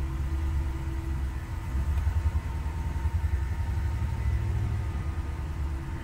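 Ram 5.7 L Hemi V8 running roughly with a low, uneven rumble, barely staying running. It has a dead miss on cylinder one, which makes zero compression from a mechanical fault. Heard from inside the truck's cab.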